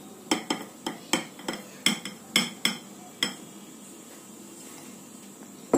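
Glass bowl knocked repeatedly against the rim of a stainless-steel mixer-grinder jar while wheat flour is tipped in: about nine sharp clinks in the first three seconds.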